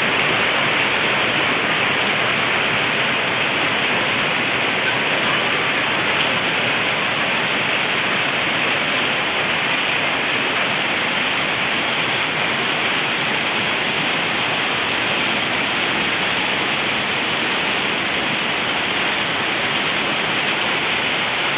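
Heavy typhoon rain pouring steadily, falling on corrugated roofs and streaming off their edges in a continuous even hiss.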